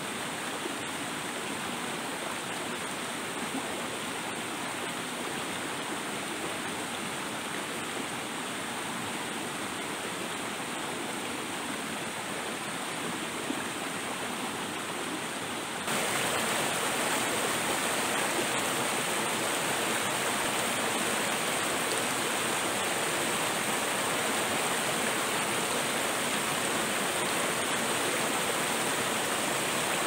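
River water flowing in a steady rush that jumps abruptly louder and brighter about halfway through.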